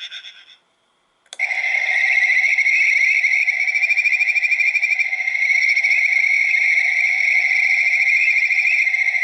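A frog-call capsule-toy keychain plays a recorded kajika frog call through its small speaker: a high, continuous warbling trill. It starts suddenly about a second in, after the previous call cuts off and a moment of silence.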